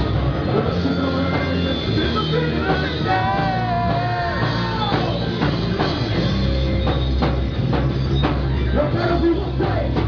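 Rock music played by a band, with a drum kit striking steadily.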